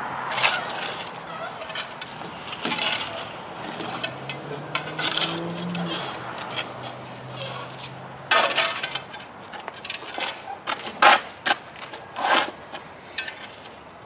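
Shovel digging in the sandy soil of a fence post hole: a run of short scrapes and crunching stabs into the dirt, loudest in a cluster about eight to twelve seconds in.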